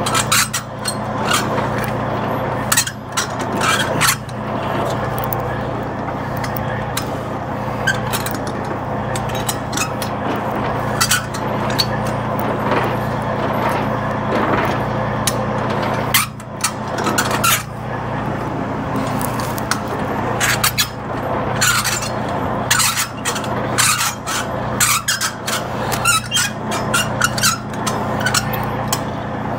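Semi-trailer landing gear being cranked up by hand, the crank handle and leg gearing clicking and clanking irregularly. Under it is the steady hum of an idling diesel truck engine.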